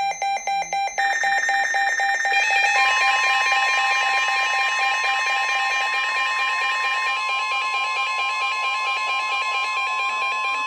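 Weather radio alert alarms going off for a new severe thunderstorm warning. Fast repeating electronic beeps in several patterns are joined, about three seconds in, by a steady tone near 1 kHz, the NOAA Weather Radio warning alert tone, which holds to the end.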